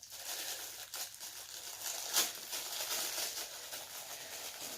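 Plastic packaging crinkling and rustling as a small novelty item is unwrapped, with irregular crackles and a sharper click about two seconds in.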